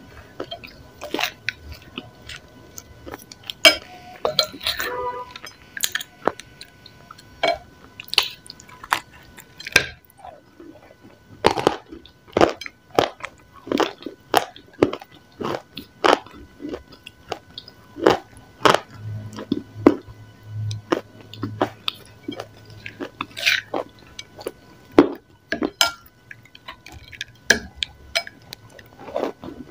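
Close-miked biting and chewing of a crumbly grey clay-like slab: sharp, irregular crunches about one or two a second, with softer chewing between them.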